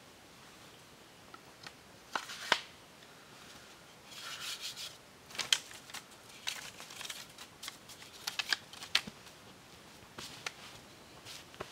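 Split bamboo pieces being handled and knocked together, making a series of sharp clicks and knocks, with some rustling of dry leaves and bamboo about four seconds in.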